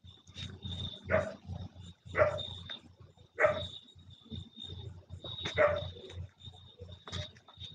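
A dog barking several times, a second or two apart.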